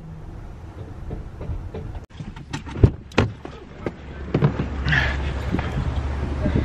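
Clicks and knocks of a minivan door being unlatched and opened, followed by a steady low hum.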